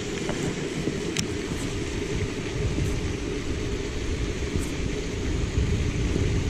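Wind buffeting the microphone: a steady low rumble with no tone to it, and a few faint clicks.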